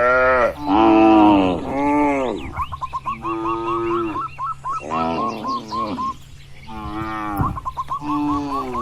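Cattle mooing: about seven moos in quick succession, some short and some drawn out, rising and falling in pitch. Between them a rapid, regular chirping repeats several times a second.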